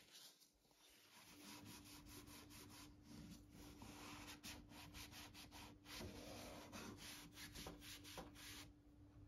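Faint rubbing of damp kitchen paper wiped back and forth over the plastic front of a water dispenser around its spouts, starting about a second in and stopping shortly before the end.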